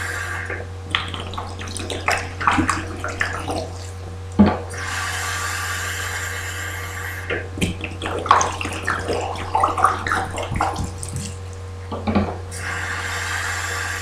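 Water from a bathroom tap running into a soft plastic bottle, the filling hiss alternating with irregular sloshing and splashing as the bottle is rinsed out and emptied into the sink. One sharp knock comes about four seconds in.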